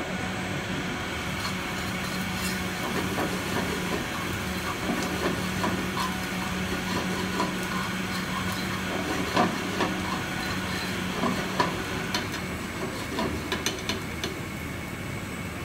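Chopped garlic sizzling in hot oil in a frying pan, with a fork clicking and scraping against the pan as it is stirred now and then. A steady low hum runs underneath and stops about three quarters of the way through.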